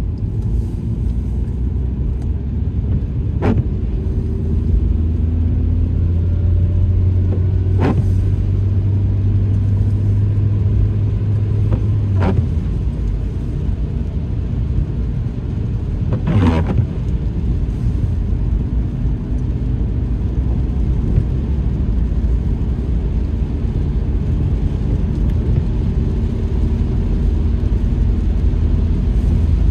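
A car driving, with a steady low rumble from the engine and road. The engine note rises a few times as the car accelerates. A sharp click comes about every four seconds in the first half.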